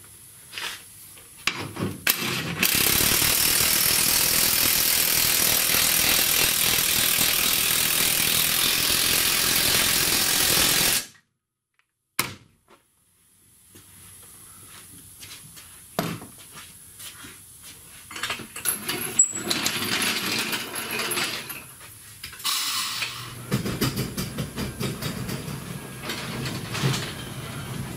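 Workshop tool noise: a loud, steady, hiss-like running sound for about eight seconds that stops abruptly, followed later by scattered clicks and clanks of tools on metal and a low rumble near the end.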